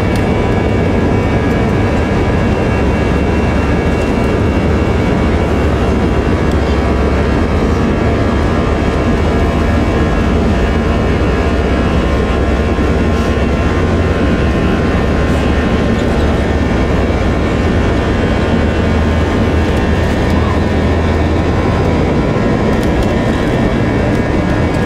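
Jet airliner's engines running steadily, heard inside the passenger cabin. There is a constant hum with a low rumble that eases slightly near the end.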